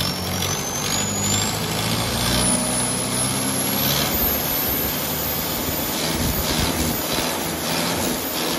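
Tractor diesel engine running with a newly fitted turbocharger: a thin whistle climbs steadily in pitch over the first four seconds as the turbo spools up, then holds very high over the engine's steady note.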